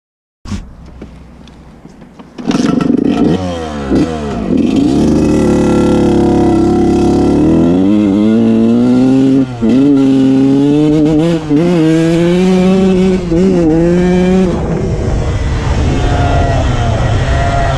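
KTM SX125 two-stroke dirt bike engine revving hard under acceleration. Its pitch climbs and then drops at each gear change, several times over, and wind hisses on the microphone.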